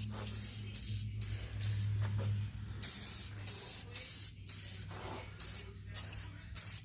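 Aerosol can of aluminum spray paint hissing in short repeated bursts, about two a second, as the paint is sprayed on.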